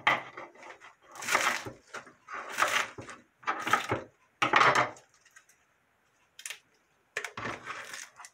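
Kitchen knife cutting through a bundle of green onions on a wooden cutting board: about five cuts roughly a second apart, a pause, then a few more cuts near the end.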